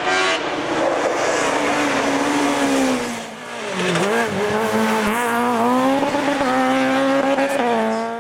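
Racing car engine at high revs, easing off a little past three seconds in, then revving back up and holding high until it drops near the end.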